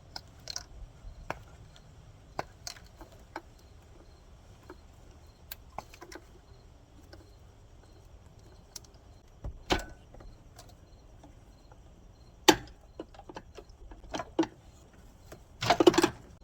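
Scattered clicks, clinks and knocks of hand work in an engine bay, as tools and plastic wiring connectors are handled while the intake manifold is stripped. A louder knock comes past the middle, and a short rattling cluster near the end.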